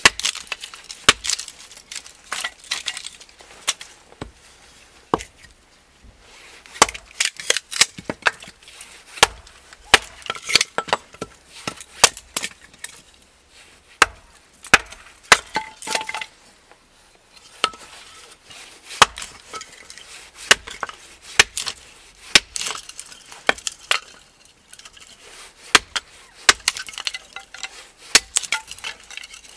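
Hatchet chopping and splitting thin softwood kindling on a wooden chopping block: runs of sharp, irregular strikes with short pauses between them.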